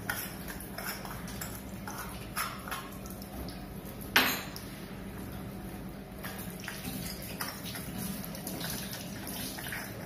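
Chrome sink-mixer fittings clinking and tapping as they are fitted onto the wall tap leg above a stainless-steel sink, with one sharp metallic clank about four seconds in. A thin trickle of water runs into the sink.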